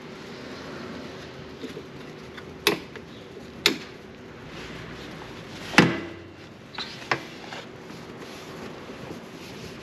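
Gloved knuckles knocking on the plastic bodywork of a Honda SH 350 scooter. There are about five hollow knocks, some with a short ring, and the loudest comes just past halfway.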